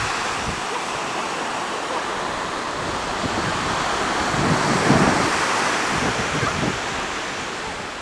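Ocean surf washing onto the beach, a steady rushing noise, with wind buffeting the microphone and growing louder about halfway through.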